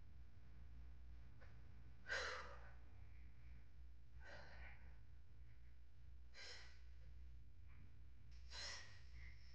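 A person's forceful breathing out during leg lifts: four short breathy puffs about two seconds apart, in time with the legs being lowered and raised. The first, about two seconds in, is the loudest. A low, steady hum lies underneath.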